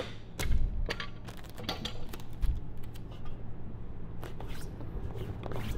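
Scattered light clicks and taps from handling masking tape and the screen on a manual screen-printing press, over a steady low hum.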